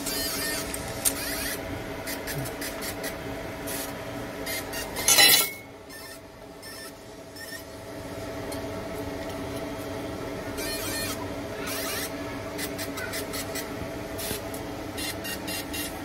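Computerised bird-ring printing machine running with a steady hum, with short rasping hisses now and then as it works on the rings, and a brief loud rustle about five seconds in.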